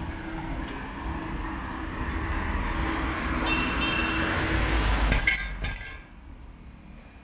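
A car passing close by, its tyre and engine noise swelling over a few seconds, with a few sharp clinks near its loudest point; then the sound drops away suddenly.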